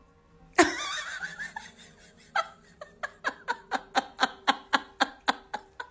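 Rhythmic laughter: short pulses about four a second, from about two seconds in until near the end, after one sharp, wavering cry about half a second in.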